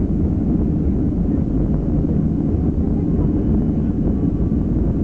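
Boeing 737-300's CFM56 turbofan engines running steadily, heard from inside the cabin as an even, low rumble as the jet taxis onto the runway.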